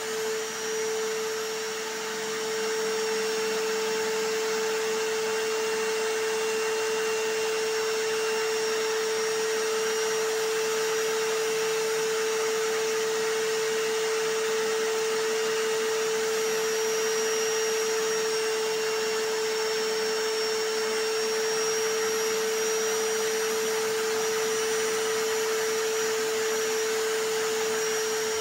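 Vacuum cleaner sound layered with a hammer drill: a continuous, even whoosh with a constant motor hum, steady with no breaks or changes.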